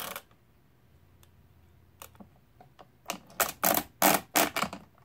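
Brunsviga Model A pinwheel calculator's metal mechanism worked by hand. One click at the start and a few faint clicks follow, then a quick run of loud metal clicks and clatters in the last two seconds as the register wheels turn.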